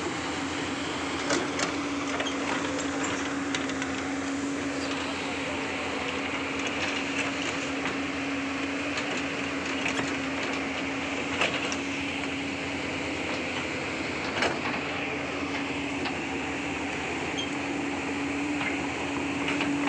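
Tracked excavator's diesel engine running steadily with a constant hum, with a few short sharp knocks scattered through.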